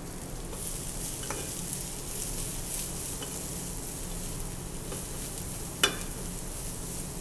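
Shaved Brussels sprouts and bacon sizzling steadily in a frying pan over medium heat, with one sharp clink about six seconds in.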